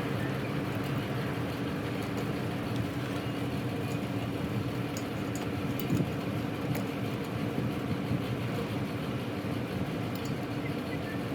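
Steady mechanical drone with a held low hum, with a few light clicks and a small knock about six seconds in.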